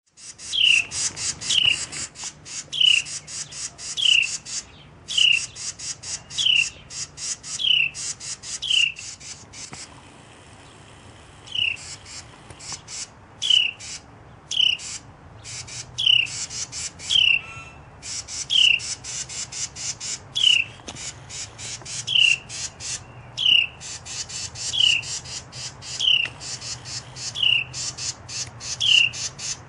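Carolina wrens scolding in alarm at a chipmunk near their nest: harsh, rapid rattling calls over and over, with a steady string of short downslurred notes about three every two seconds. Both break off briefly about ten seconds in, then resume.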